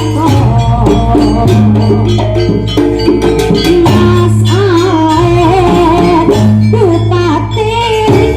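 Javanese jaranan campursari music played live: percussion strikes over repeated held low bass notes, with a wavering, ornamented melody line on top.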